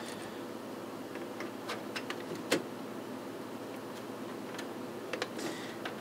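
Scattered light clicks and taps of cable connectors being handled and pushed into the back of a DVD drive, the sharpest about two and a half seconds in, over a steady low hiss.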